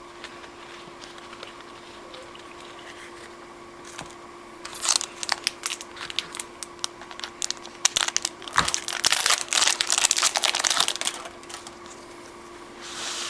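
A foil trading-card pack wrapper being torn open and crumpled, in crackling bursts from about five seconds in until about eleven seconds, with one more short crinkle near the end. A faint steady hum runs underneath.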